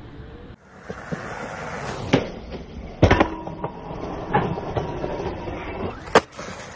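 Skateboard on a metal rail, its trucks and wheels scraping and rolling, with four or so sharp clacks of the board.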